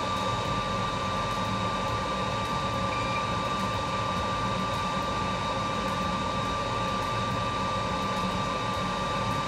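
Steady mechanical hum, like a fan or ventilation running, with a constant high-pitched whine and no change in level.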